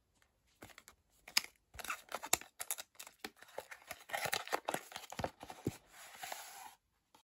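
Packaging being handled by hand: rustling and crinkling with small clicks and knocks, stopping abruptly near the end.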